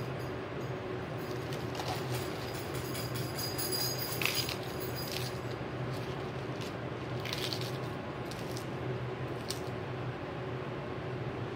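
A steady low hum, with a few short clicks and rustles, the most distinct about four seconds in and again a little after seven seconds.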